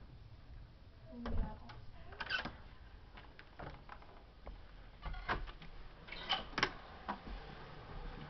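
Scattered clicks and knocks, in small clusters about a second in, around two seconds, and several between five and seven seconds in.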